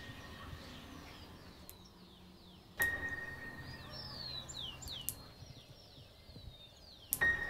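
A bell-like chime struck twice, about three seconds in and near the end, each strike ringing on a single clear tone that slowly fades. Short, falling bird chirps run through the middle.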